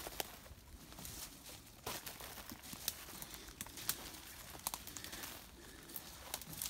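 Footsteps through dry leaf litter and patchy snow, the leaves and brush crackling and rustling in irregular bursts with a few sharp twig snaps.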